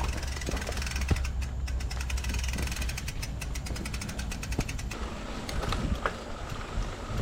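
Mountain bike descending a dirt trail: the rear freehub ticks rapidly while coasting and stops about five seconds in, over a steady low rumble of tyres and wind, with a few knocks from the bike rattling over bumps.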